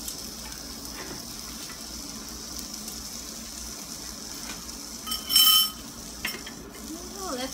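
Food sizzling steadily on a tabletop grill plate as pieces are laid on it with metal tongs. About five seconds in there is a short, loud ringing clink of metal or glass.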